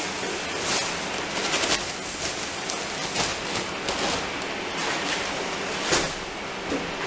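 Ready-mix mortar being churned in a bucket by a Keyang D-23 mortar mixer: a steady gritty hiss with irregular scraping crackles.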